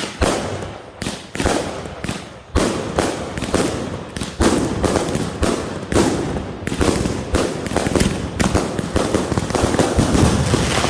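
Fireworks going off: a rapid, unbroken run of sharp bangs and crackles that grows denser after a couple of seconds.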